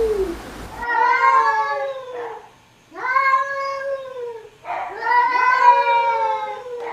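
A domestic cat meowing: three long, drawn-out meows in a row, each rising slightly and then falling away, with the falling tail of an earlier meow at the very start.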